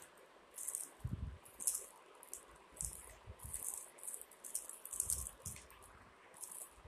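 Woven plastic wire basket strands rustling and crackling in irregular bursts as hands turn it over and fold the loose strand ends inward, with a few soft low thumps of handling.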